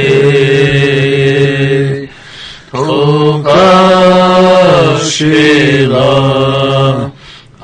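Slow vocal chant: a low voice sings long held notes, each lasting a couple of seconds. It breaks off briefly about two seconds in and again near the end, and the pitch steps up in the middle.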